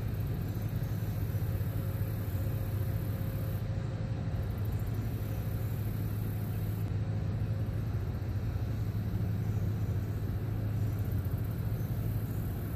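Steady low engine rumble, even in level throughout.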